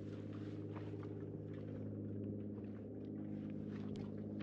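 A boat engine runs steadily at an even, low hum, with a few small knocks and water sounds over it.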